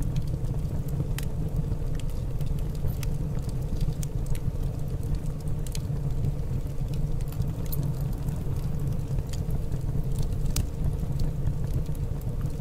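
Steady low rumble with scattered faint crackles, the crackles from flux spitting as a soldering iron heats desoldering braid on circuit-board pads.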